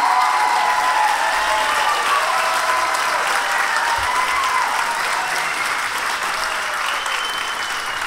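Large theatre audience applauding after a big band performance, the clapping slowly easing off.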